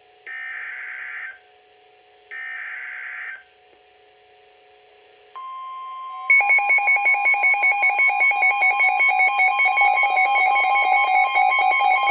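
NOAA Weather Radio EAS (SAME) header data: two rasping digital bursts, each about a second long with a second of quiet between, signalling the start of a severe thunderstorm warning. About five seconds in, the steady 1050 Hz weather-radio warning alarm tone begins. About a second later a much louder, rapidly pulsing alarm tone joins over it.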